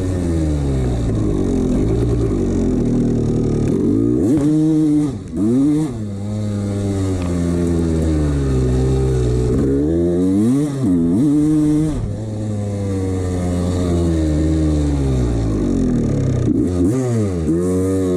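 1989 Honda CR250's single-cylinder two-stroke engine running, blipped in quick pairs of revs three times and settling back to a steady run between them; the owner puts its sound down to piston slap.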